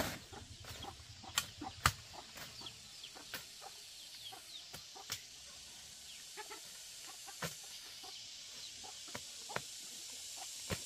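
Chickens clucking amid scattered sharp clicks and taps, over a steady high hiss.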